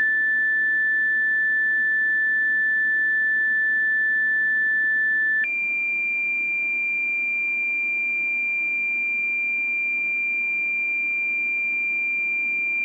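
Two-tone sequential pager tones received over a Motorola HT1000 handheld radio's speaker: a steady tone held about five seconds, then a step up to a higher steady tone held about seven seconds, cutting off abruptly.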